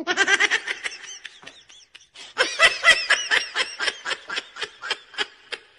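High-pitched laughter in quick repeated bursts, about five or six a second. It eases off briefly about one and a half seconds in, then picks up again.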